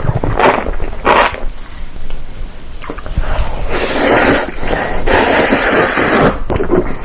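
Noisy, wet eating sounds. Short chewing bursts come in the first half, then a longer wet, hissing stretch of slurping through the middle.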